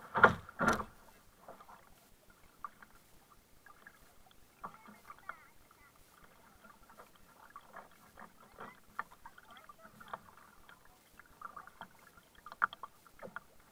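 Double-bladed kayak paddle strokes in calm water: irregular small splashes and drips off the blades. Two loud knocks come in quick succession right at the start, with a louder splash near the end.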